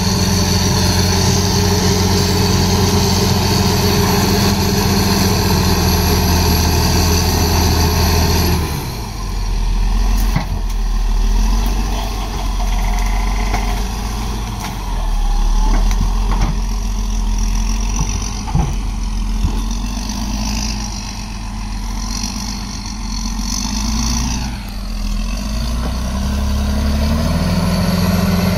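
Crawler bulldozer's diesel engine running hard under load. About nine seconds in it drops abruptly to a lower, quieter note, with a few sharp knocks while it works through the brush. Near the end it builds back up to full power.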